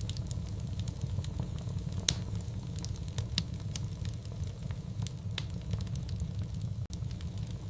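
Wood fire crackling in a fireplace: scattered sharp pops over a steady low rumble, with one louder pop about two seconds in.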